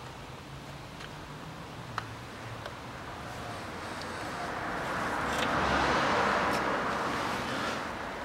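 Faint scattered clicks from fuel-line quick-connector latches at a diesel fuel filter being pressed and worked by hand. In the second half a rushing noise swells up and fades away over about four seconds, louder than the clicks.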